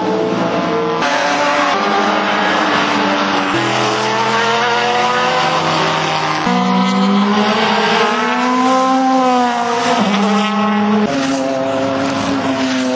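Racing car engines running hard on a circuit, their pitch rising and falling as cars accelerate and pass. The sound jumps abruptly several times as one car's engine gives way to another's.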